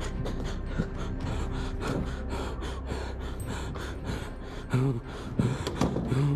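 A man panting hard and fast as he runs, about six short breaths a second. From about two-thirds through come several short, louder gasps with voice in them.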